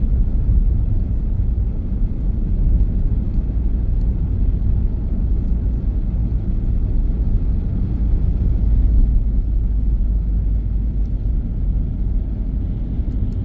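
Car driving at a steady speed, heard from inside the cabin: an even low rumble of road and engine noise with no change in pace.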